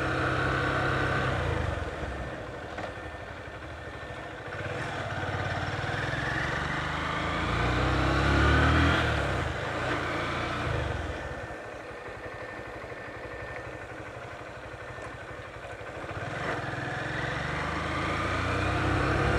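Car engine and tyre noise heard from inside the moving car. The engine note rises as the car speeds up from a few seconds in until about halfway, drops back, then rises again near the end.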